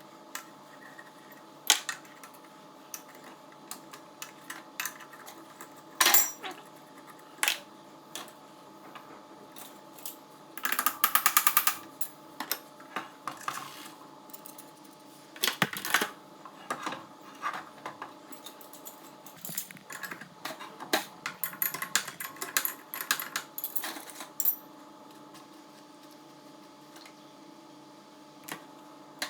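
Metal hand tools and engine parts clinking and knocking in scattered clicks, with a quick run of rattling clicks about eleven seconds in, over a steady low hum.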